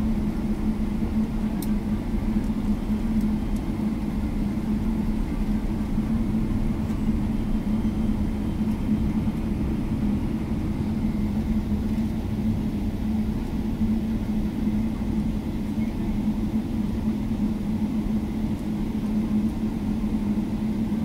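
Steady drone of an airliner cabin after landing, with a low, even hum.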